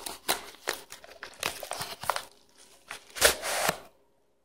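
Padded kraft-paper mailer envelope crinkling and rustling as it is handled and torn open, in a string of short rustles with the loudest, longer rip a little after three seconds in.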